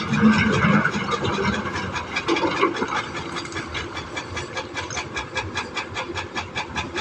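Komatsu hydraulic excavator's diesel engine and hydraulics running under load, with a fast, even ticking of about six a second over a low hum whose pitch shifts about two seconds in.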